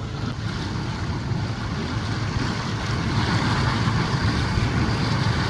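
Steady wind and water rush aboard a sailboat under tow, over a low engine drone; the hiss grows a little louder about three seconds in.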